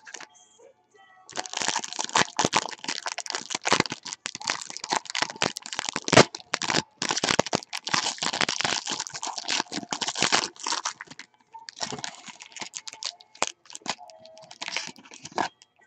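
Foil wrapper of a 2014 Museum Collection football card pack being torn open and crinkled by hand: a dense crackling that starts about a second in, pauses briefly, then resumes.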